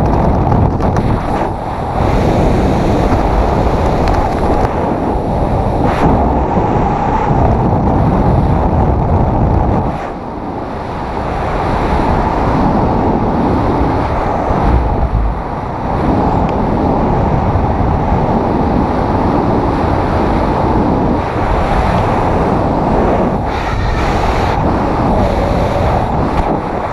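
Wind rushing over a body-worn camera's microphone while flying under an open ram-air parachute canopy: a loud, steady buffeting rush with brief lulls about ten and fifteen seconds in.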